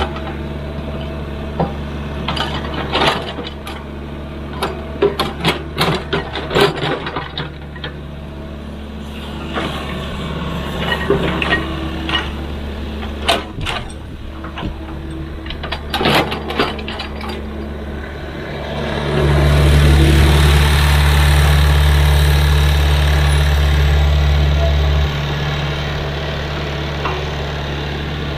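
Hydraulic excavator's diesel engine running steadily, with a string of sharp knocks and clanks over the first two-thirds. About two-thirds of the way in the engine grows louder for about six seconds under load, then settles back.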